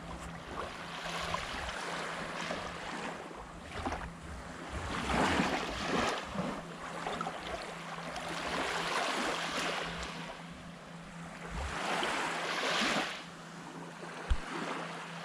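Small waves washing onto the beach, the surf swelling and fading every few seconds, with some wind on the microphone. A short thump sounds near the end.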